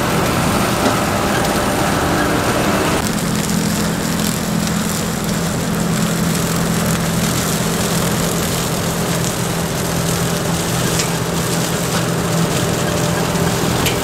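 Heavy diesel farm machinery running steadily. The engine sound changes abruptly about three seconds in.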